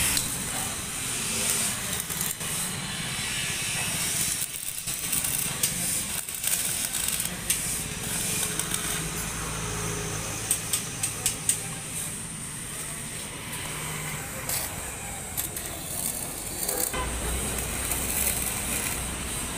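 Electric arc (stick) welding on a motorcycle's side-stand mount: the arc crackles and hisses steadily, with a few brief pauses. A quick run of about five sharp taps comes about ten to eleven seconds in. The welding lays the second and third passes over the break.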